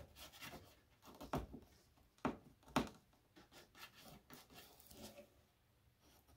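A mechanical pencil marking a line on a paper template, with a few short scratchy strokes and quiet rubbing of the paper; the two sharpest strokes come a little over two seconds in.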